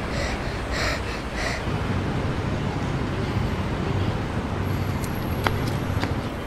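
Steady low rumbling outdoor background noise, with two sharp clicks about half a second apart near the end.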